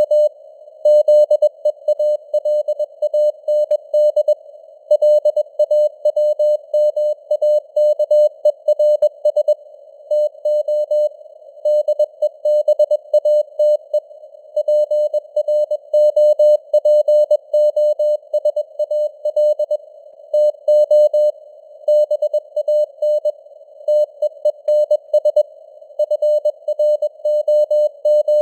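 Morse code (CW) at 21 words per minute: a single beeping tone near 600 Hz keyed on and off in dots and dashes over a narrow band of hiss, like a signal heard on a ham radio receiver. The signal strength rises and falls slightly (simulated QSB fading).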